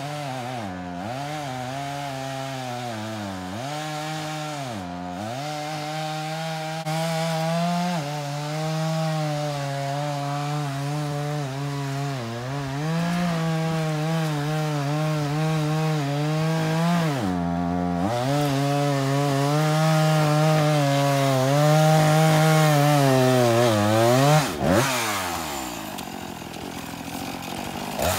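Gasoline chainsaw running at high revs while cutting up fallen tree trunks, its pitch dropping briefly and climbing back several times as it works through the wood.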